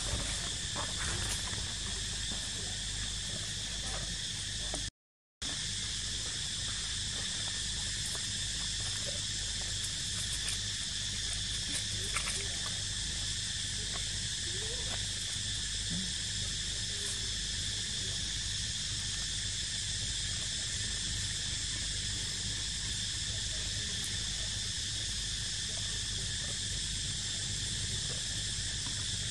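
A steady outdoor insect chorus: a continuous high drone over a low background rumble, with a few faint short chirps. The sound cuts out for a moment about five seconds in.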